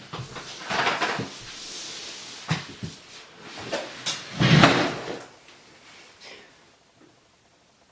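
A string of knocks, clatters and rustles, with one heavier thump about four and a half seconds in, dying away near the end.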